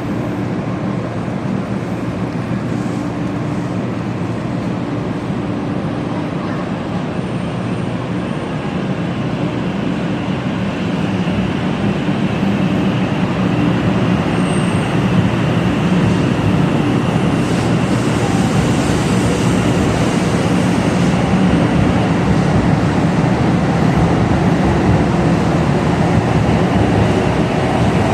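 Hello Kitty Shinkansen, a 500 Series bullet train, running with a steady rumble and rush. It grows louder about halfway through.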